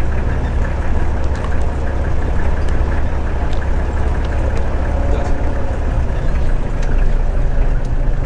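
A vehicle engine running steadily with a low rumble.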